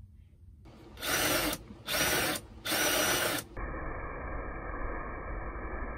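Cordless drill with a Forstner bit boring a finger-pull hole in a plywood drawer front: three short bursts with the motor whine rising and falling in each, then a steadier, duller run.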